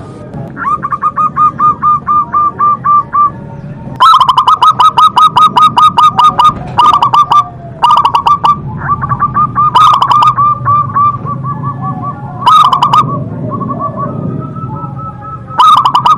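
Zebra dove (perkutut) cooing: several runs of quick, evenly repeated notes, several a second, the longest and loudest run about four seconds in, then shorter bursts.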